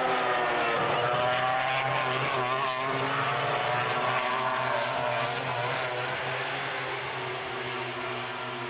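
MotoGP racing motorcycles' 800cc four-stroke engines passing through a fast corner. Several engine notes overlap, their pitch gliding up and down over a steady low drone, easing a little near the end.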